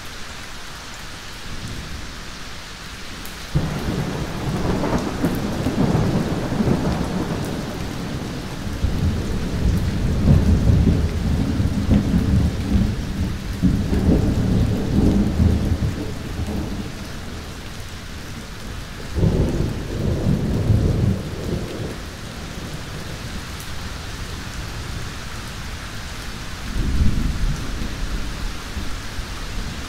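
Thunderstorm: steady rain with rolling thunder. A long, deep rumble starts suddenly a few seconds in and rolls on for over ten seconds, then a shorter peal comes about twenty seconds in and another near the end.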